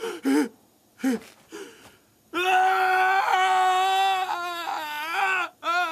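A young man crying out in anguish. Three short gasping sobs are followed by a long wail held at one pitch for about three seconds, then one more sob at the end.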